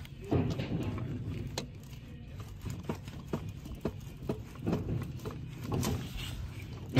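Irregular knocks and clinks, roughly one or two a second, of metal car parts and tools being handled while a rear axle is stripped down, over a low steady hum.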